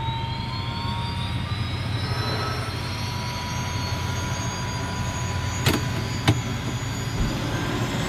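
Piaggio P.180 Avanti's turboprop engine running on the ground, heard from the cockpit: a steady low drone with a turbine whine that rises slowly in pitch. Two sharp clicks about half a second apart come just past the middle.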